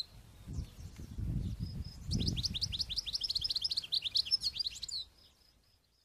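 European goldfinch singing: a fast twittering run of short, downward-sliding notes, several a second, starting about two seconds in and cutting off suddenly near the end, over a faint low rumble.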